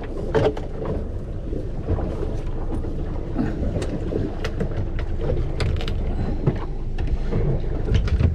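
Wind buffeting the microphone on a small boat at sea, a steady low rumble, with scattered knocks and clicks from on board.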